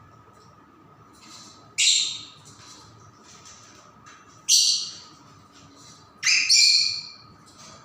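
Pet hill myna giving loud, harsh squawks, three strong ones each a couple of seconds apart, the last a double call, with fainter calls between; the owner says the bird has a cough and cold and will not talk.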